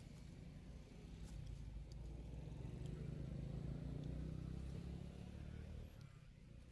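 Low rumble of a motor vehicle engine, swelling over a few seconds and dropping away near the end.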